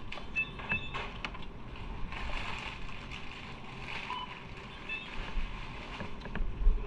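Motorcycle on the move: steady wind and road noise with scattered clicks, and a brief low buffet about 6.7 s in.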